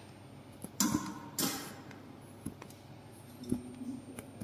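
Faint handling sounds: two short scratchy rustles about a second in and a few light ticks, as a thin wire is poked into the small holes of a polyester fiber acoustic panel.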